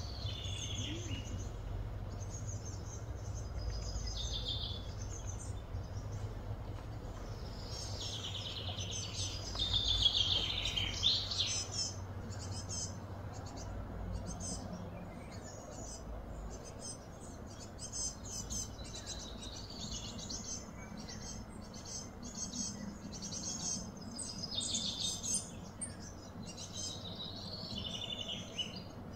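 Wild birds chirping and calling again and again, some calls gliding downward in pitch, over a steady low background rumble.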